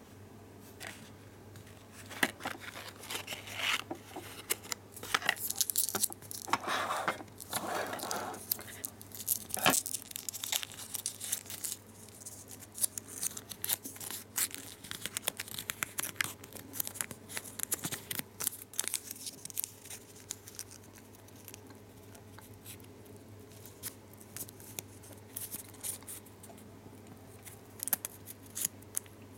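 Foil-lined paper gum wrapper crinkling and crackling in the fingers as it is handled and creased into folds. The crackles come in dense clusters for the first ten seconds or so, then thin out to scattered crackles, with a faint steady hum beneath.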